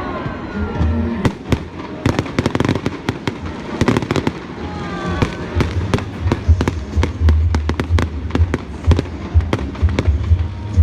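Fireworks bursting: many sharp bangs and crackles in quick succession over a steady low rumble.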